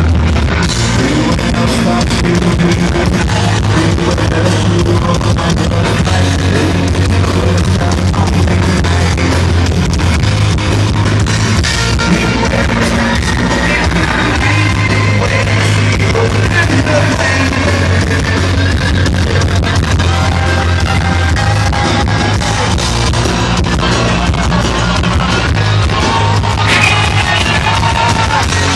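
Heavy metal band playing live at full volume: distorted electric guitars over bass and drums.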